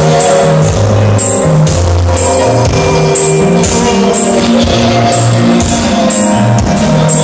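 Electronic keyboard playing worship music: a bass line and held chords over a steady beat with tambourine-like hits about twice a second.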